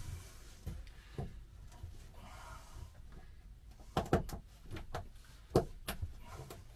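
Plastic push-pin fasteners being pressed through a carpeted panel into a van door's metal, giving a scattered series of short clicks and knocks, bunched together from about four seconds in.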